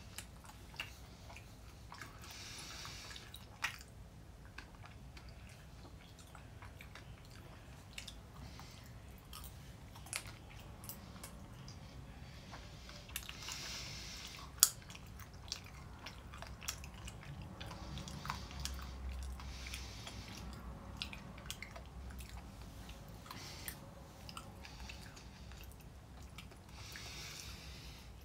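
Close-up chewing of a white crème chocolate bar with popping candy, with scattered sharp pops and clicks from the mouth, one louder than the rest about midway.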